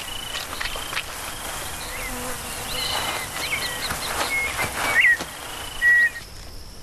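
Buzzing of a swarm of flying insects, winged termites on their mating flight, with many short high chirps and whistles over it; two louder chirps stand out about five and six seconds in.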